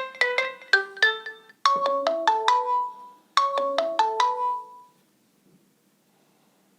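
Samsung Galaxy J1 mini stock ringtone playing: a melody of short, quickly decaying notes in repeated phrases, stopping about five seconds in.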